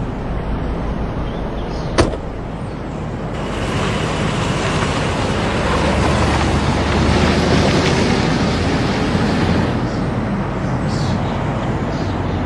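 A car door shuts with a single knock about two seconds in. Then a sedan's engine and tyres grow louder as it pulls away and drives off, easing slightly near the end.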